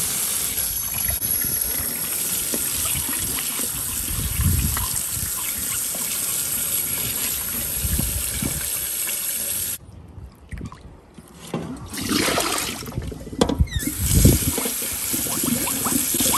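Tap water running steadily into a bowl as koobi, salted dried tilapia, is rinsed. The flow stops suddenly about ten seconds in, followed by a few seconds of splashing and knocks of handling before the water runs again.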